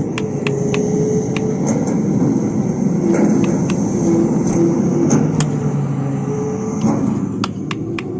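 Small electric motors of toy construction vehicles (an excavator and a dump truck) whirring steadily, their pitch shifting as they work, with scattered sharp clicks throughout.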